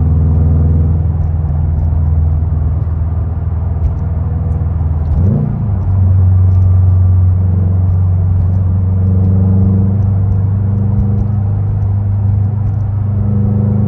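2021 Subaru WRX STI's turbocharged 2.5-litre flat-four running through a Tomei aftermarket exhaust while driving, a steady rumble with a brief rev about five seconds in before settling back to a steady drone.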